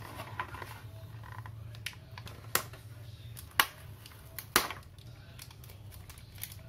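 Plastic blister packaging and label tape handled by hand, giving several sharp plastic clicks and taps, the three loudest about a second apart.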